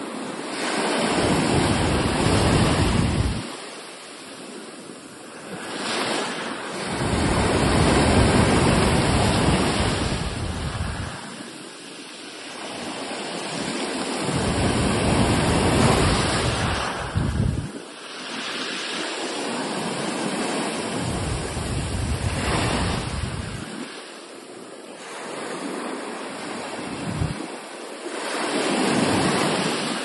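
Ocean surf: waves breaking and washing in, the rush swelling and falling back in long surges every several seconds.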